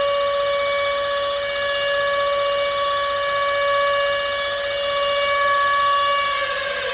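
Civil defense siren sounding one steady, held tone, its pitch starting to fall near the end as it begins to wind down.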